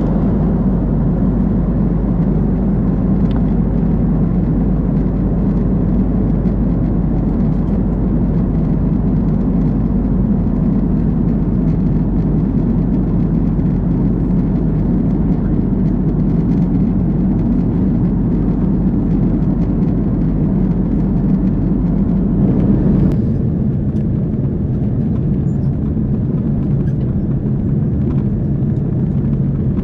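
Steady cabin noise of an Airbus A330-203 in flight: a loud, even rushing drone of airflow and its GE CF6-80E1A3 turbofan engines, heard from a window seat beside the wing. About 23 seconds in the sound changes suddenly, the deepest rumble dropping away, as the aircraft is in its descent from 11,000 ft.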